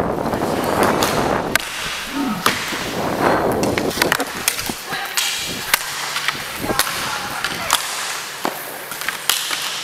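Inline skate wheels rolling and scraping on the rink floor, with sharp clacks of hockey sticks and puck hits. The rolling noise fills the first few seconds; the clacks come scattered all through, most thickly in the second half.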